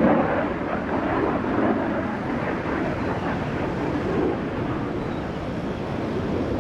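USAF Thunderbirds F-16 Fighting Falcon flying past at a distance: a steady jet-engine rumble that eases off slightly toward the end.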